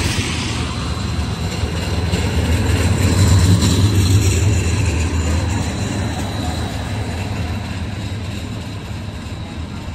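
Seattle streetcar (Inekon Trio car) passing close on a wet street: a low rumble of steel wheels on rails that builds to its loudest about three and a half seconds in, then fades as it pulls away.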